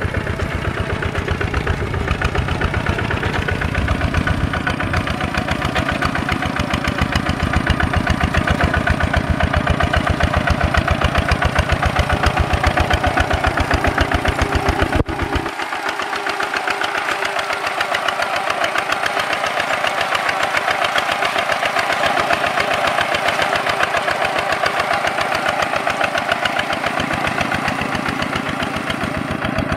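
Single-cylinder diesel engine of a Kubota walk-behind (two-wheel) tractor running steadily with an even, fast chugging beat as it pulls through muddy plowed ground on cage wheels. About halfway through the sound changes abruptly and turns thinner.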